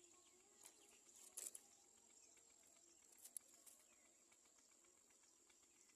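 Faint outdoor ambience: a steady high-pitched whine with a few short scratchy clicks, around one and a half and three and a half seconds in.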